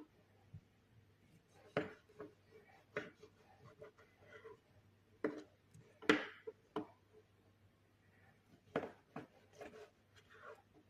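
Knife cutting oranges into small pieces on a cutting board: light, irregular knocks of the blade against the board, roughly one a second.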